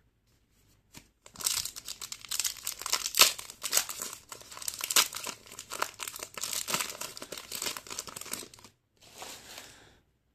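Foil wrapper of an NRL Priority trading-card pack crinkling and tearing as it is ripped open and peeled off the cards: a dense run of crackles lasting about seven seconds, then a short, fainter crinkle near the end.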